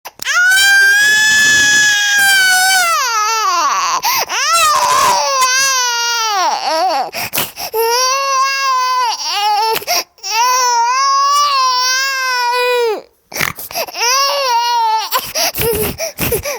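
Infant crying hard from hunger: long, loud wails that waver up and down in pitch, with a few short gasps for breath between them.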